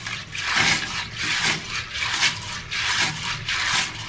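Hands rubbing and scrubbing a batch of wet piñon nuts in a plastic colander, the nuts scraping and rattling against each other in quick repeated strokes, about two to three a second.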